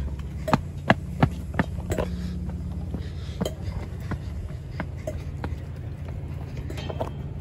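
Steady low hum of a standing Chiltern Railways locomotive-hauled train at the platform, with footsteps on the platform paving, quick ones in the first two seconds and then fewer.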